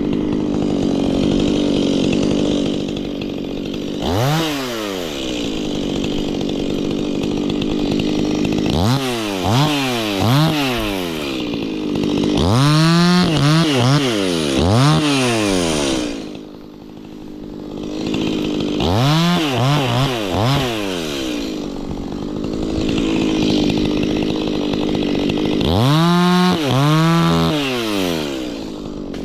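Chainsaw running, revved up and back down again and again in clusters of quick throttle bursts, with a steady lower drone in between. The sound drops briefly about two-thirds of the way through.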